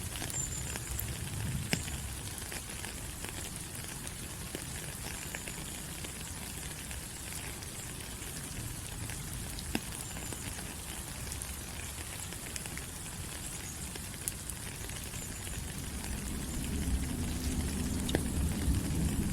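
Steady rain falling on forest leaves, an even hiss with scattered sharp drop ticks. A low rumble swells up over the last few seconds.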